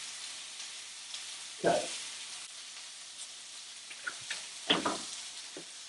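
Steaks searing in a covered cast iron skillet: a steady sizzle, with a couple of light clicks about four seconds in.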